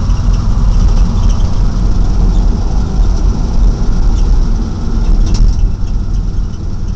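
Vehicle engine and road noise heard from inside the cab while driving along a street: a loud, steady low rumble.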